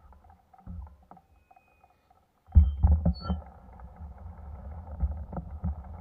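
Low wind rumble and road noise on a bicycle-mounted camera as the bike rolls along asphalt, quiet at first, then buffeting suddenly louder about two and a half seconds in with irregular gusty thumps.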